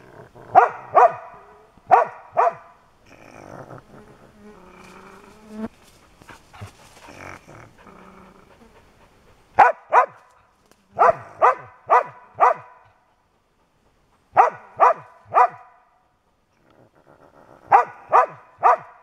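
Raccoon dog pup giving sharp, yapping barks in quick bursts of two to four, six bursts in all, with a quieter rough stretch of sound between the second and third bursts.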